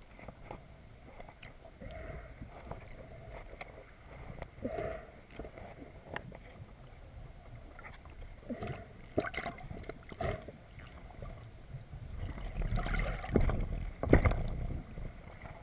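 Muffled underwater sound recorded through a camera housing: water rushing and gurgling around the camera, with scattered knocks and clicks. It grows louder near the end.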